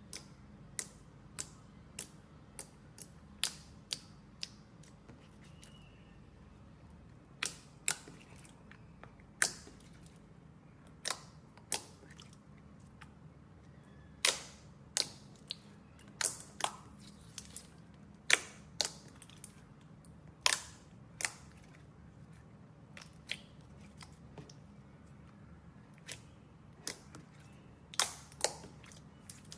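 Slime being squeezed and poked by hand, giving irregular sharp clicks and pops, sometimes several in quick succession, over a faint low hum.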